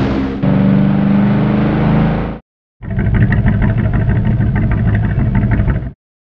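Motorboat engine sound effects: a steady engine hum that cuts off abruptly about two seconds in, then, after a short pause, a rougher pulsing engine run for about three seconds that stops sharply.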